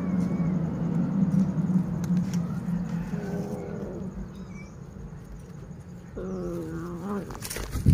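Cat vocalising while cats feed on fish: two short wavering calls, one in the middle and one near the end, over a steady low hum, with a sharp knock right at the end.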